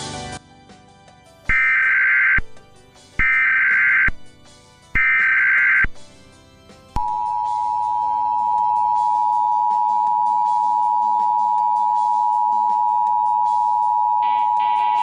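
Emergency Alert System broadcast signal opening a tornado warning: three short bursts of the warbling SAME digital header, then the long, steady EAS attention tone, starting about seven seconds in.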